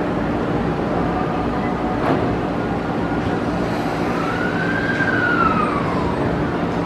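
E231-series electric commuter train standing at a station platform with a steady hum; its sliding doors shut with a thud about two seconds in. Between about four and six seconds a single tone rises and then falls.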